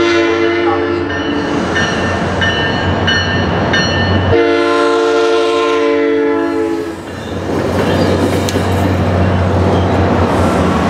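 SunRail commuter train sounding its multi-tone air horn: a short blast at the start, then a long blast of about two and a half seconds a few seconds in. The train then rolls past, its wheels rumbling on the rails.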